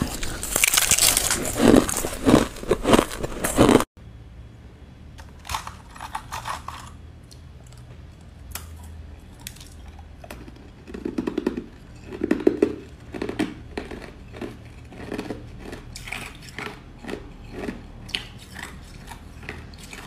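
Close-miked crunching and chewing of crushed ice in the mouth. Loud, dense crunches for the first four seconds, then an abrupt cut to quieter, scattered bites and crunches, with a louder cluster of crunches about eleven to thirteen seconds in.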